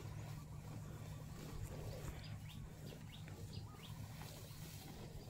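Water buffalo cropping and chewing dry cut grass, a faint series of short, crisp tearing and crunching sounds over a steady low rumble.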